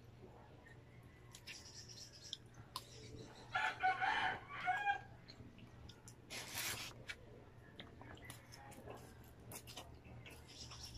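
A rooster crowing once in the background, about three and a half seconds in, lasting about a second and a half, over small clicks of a plastic fork against paper food boxes. A short slurping sound comes a couple of seconds later.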